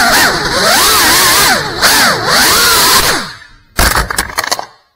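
GEPRC CineLog35 cinewhoop's ducted props and brushless motors whining loudly, the pitch swooping up and down with the throttle. About three seconds in the whine dies away, and a quick run of knocks and clatter follows.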